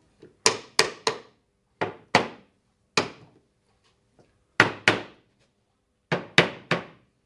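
Hammer tapping the joints of a small glued wooden shelf section to seat them. About eleven sharp strikes come in quick clusters of one to three.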